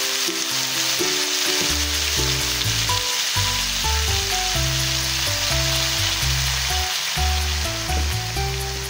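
Chicken feet sizzling and frying in a hot wok as dark soy sauce is poured over them, a steady crackling hiss. Background music with a bass line plays along.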